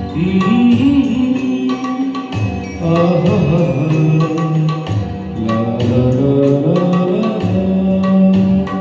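Instrumental passage of a Hindi ghazal: tabla playing a steady rhythm under a melodic line that glides up and down.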